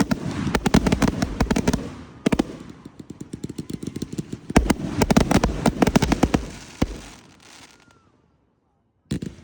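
Fireworks going off in quick succession: dense rapid crackling and bangs in two heavy flurries, dying away to near silence before one more sharp bang near the end.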